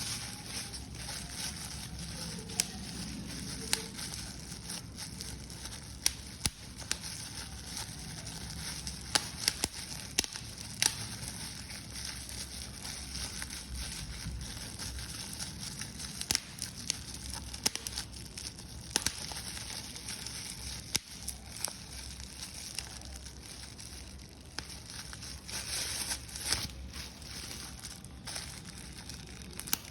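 Paper being crumpled and crushed by hand: continuous crinkling with many sharp crackles.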